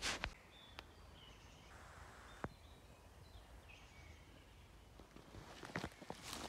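Quiet woodland ambience with faint, distant bird calls and a few small clicks, then rustling footsteps through the undergrowth near the end.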